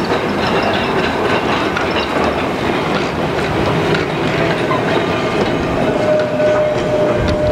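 Blackpool's Illuminated Western Train, an electric tram made up of a mock steam locomotive and a carriage, running past on street rails. Its wheels rumble steadily on the track with scattered clicks. A steady whine joins about six seconds in.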